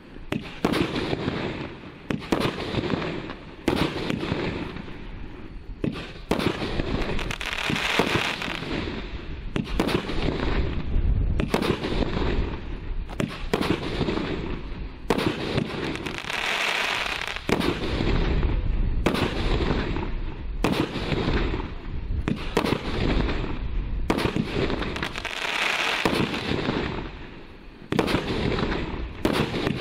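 A 25-shot, 0.8-inch consumer firework cake firing shot after shot, about one launch a second. Three times the bursts break into longer spells of crackling sparks.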